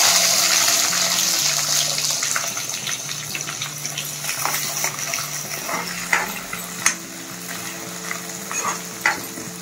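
Chopped garlic dropped into hot sesame oil in a metal kadai: a loud sizzle bursts up at once, then settles into a steady frying sizzle. A steel ladle stirring and scraping the pan adds scattered clicks.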